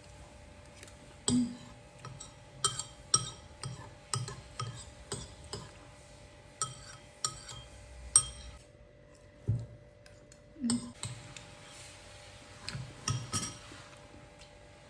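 A spoon clinking and scraping against a bowl, again and again, as spicy soup is eaten, each clink ringing briefly. There is a short pause a little past halfway.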